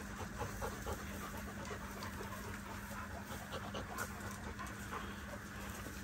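A dog panting in quick, uneven breaths, over a steady low hum.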